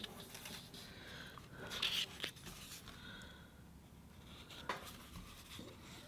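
Faint rustling of construction paper, strongest about two seconds in, with a couple of light clicks as paper pieces are handled and pressed onto a cardboard tube.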